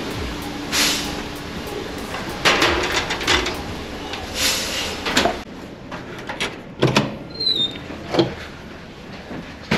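Ceramic plates, bowls and a plastic tray clattering as they are set down on a stainless-steel tray-return rack, with several sharp knocks over a steady room hum. About halfway through the hum drops away, and a few separate thumps and a short squeak follow.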